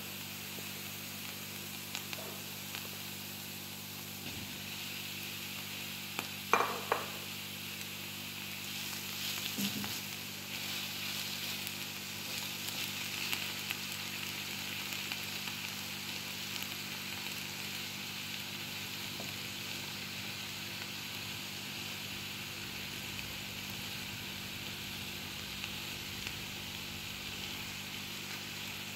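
Food frying in a pan with a steady sizzle. A short, loud clatter comes about six and a half seconds in, and a softer knock follows a few seconds later.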